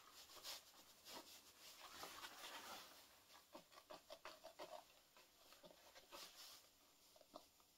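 Faint snipping and rubbing of the small scissors of a Victorinox Workchamp pocket knife cutting through the leather of a welding glove, a scatter of quiet clicks.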